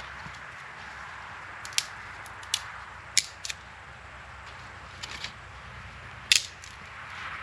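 Bonfire of branches burning with a steady hiss and irregular sharp crackling pops, the loudest a little past six seconds in.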